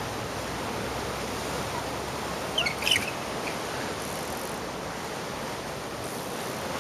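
Steady wind and sea-surf noise on an exposed seafront. About two and a half seconds in, a brief cluster of sharp, high squeaks and clicks stands out.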